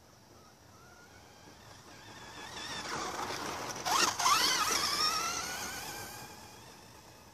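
Kyosho Optima RC buggy's Dynamite 15-turn 540 brushed electric motor whining as the buggy drives past, building up, loudest with a sharp swoop in pitch about four seconds in, then fading away.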